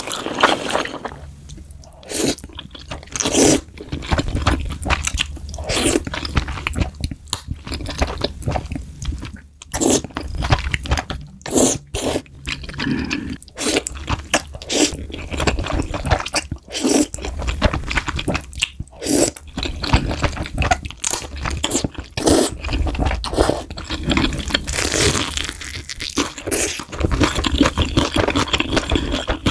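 Loud crunching and chewing of food, with many irregular crackles and bites.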